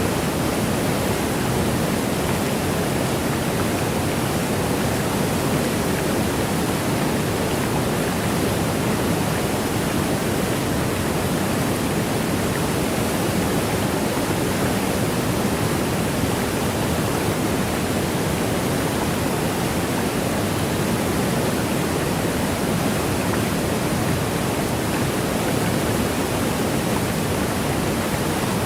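Waterfall: the steady, unbroken rush of falling water, a deep even hiss with no changes or separate splashes.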